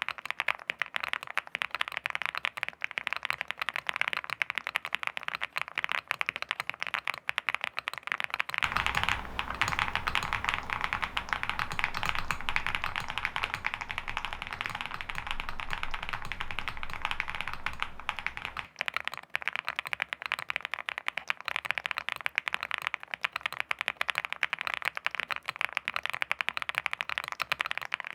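Continuous fast typing on a Meletrix Zoom TKL Dyna mechanical keyboard, its keys clacking in a dense run of clicks.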